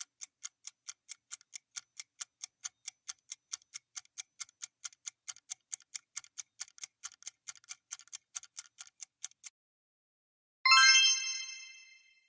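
Quiz countdown-timer sound effect ticking about four times a second for about nine and a half seconds, then stopping. After a short gap, a bright chime rings and fades near the end, marking the reveal of the correct answer.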